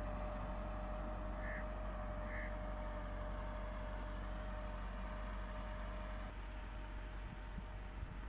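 Massey Ferguson 375 tractor's four-cylinder diesel engine running steadily under load, heard at a distance as it pulls a laser land leveler.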